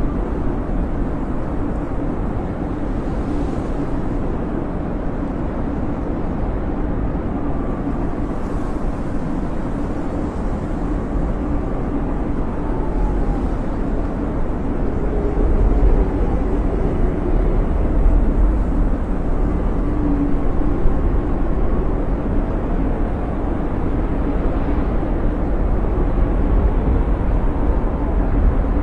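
Snowstorm wind: a steady deep roar with a faint whistle that rises and falls over it.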